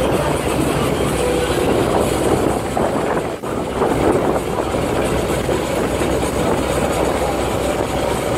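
Outrigger bangka boat under way: its engine running steadily, mixed with water splashing along the hull and outrigger.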